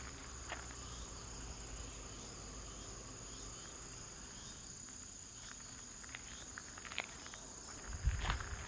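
Insects, crickets most likely, trilling steadily in a high, thin tone. Footsteps come in near the end.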